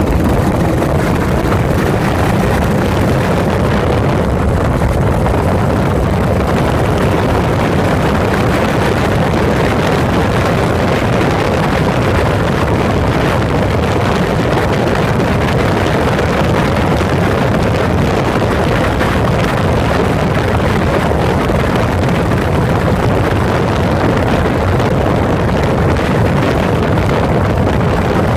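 Yamaha SRX400's single-cylinder four-stroke engine running steadily while the bike is ridden, heard from a phone mounted beside the fuel tank, with wind buffeting the microphone.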